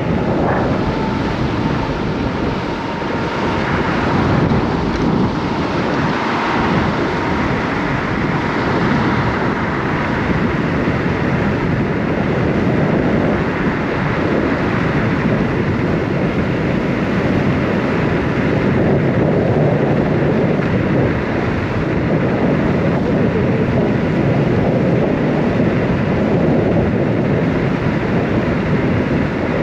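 Wind rushing over the microphone, with tyre and road noise, while a Kaabo Wolf King GT electric scooter is ridden fast. A faint steady whine sits under the wind for about the first ten seconds.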